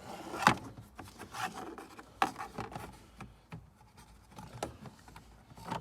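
Plastic steering-column cover panels being handled and worked loose by hand: scattered clicks and knocks of hard plastic with light rubbing and scraping, the sharpest knocks about half a second and two seconds in.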